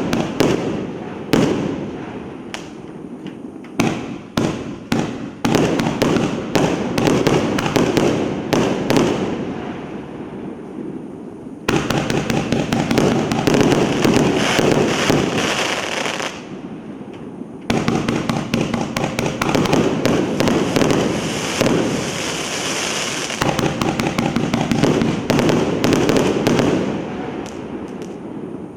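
A 200-shot, 1.5-inch consumer firework cake firing a rapid string of launches and aerial bursts. Stretches of dense crackle start abruptly about twelve and eighteen seconds in.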